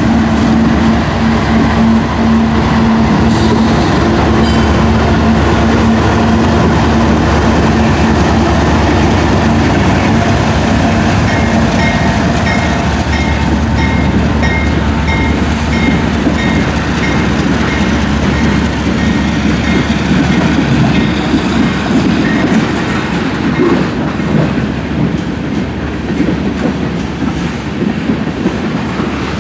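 Freight train passing close by. Two CSX GE diesel locomotives, a CW44AC and an ES40DC, run past in the first several seconds with a steady engine hum. After that come the rolling freight cars, with clickety-clack of wheels over rail joints.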